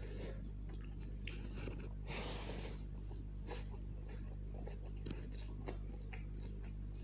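Close-up eating sounds of chicken chow mein: wet chewing with small mouth clicks, and a longer slurp of noodles about two seconds in, over a steady low hum.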